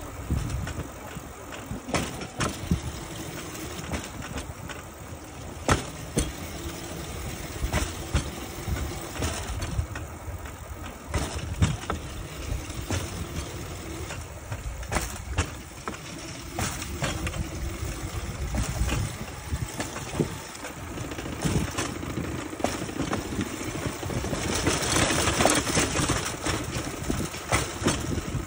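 Rail bike's steel wheels rolling along the railway track: a steady rumble broken by frequent sharp clicks and knocks at irregular intervals, with a rushing hiss rising for a few seconds near the end.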